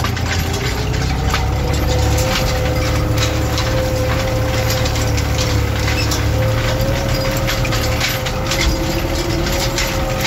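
New Holland 65-56S tractor's diesel engine running steadily under load, heard from inside the cab, with a constant whine and rapid, irregular rattling and clicking. It is pulling a spike-tooth harrow over the sown field to cover the seed.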